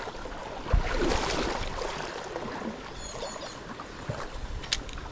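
Shallow stream water running and rippling close by, with a dull knock about a second in and a sharp click near the end.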